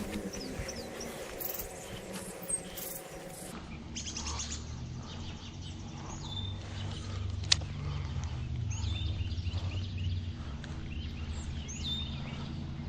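Wild birds chirping repeatedly in short, falling calls over a low steady rumble. A single sharp click sounds about seven and a half seconds in.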